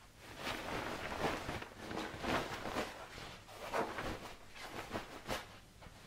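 Duvet and bedding rustling in a run of irregular soft swishes as someone moves about in bed.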